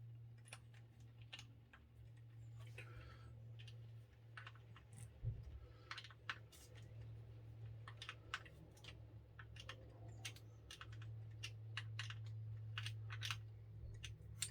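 Faint, irregular clicking and tapping of small hard plastic and metal parts being handled and fitted, as on a radio-control model car kit's front wheels, over a steady low hum.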